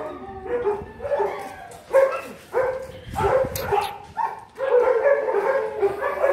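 Alaskan Malamutes barking and yipping in a rapid run of short pitched calls.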